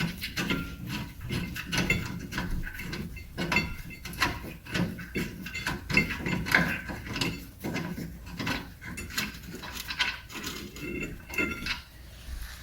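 Quick, uneven metallic clicks and clanks of a wrench working the second rear brake caliper bolt loose, with the loosened caliper rattling against its mount.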